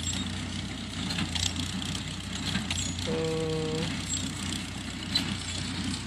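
Tractor engine running steadily while it pulls a Jones small square baler working through rice straw, with a few scattered clicks from the machinery. A short, flat, held tone sounds briefly about three seconds in.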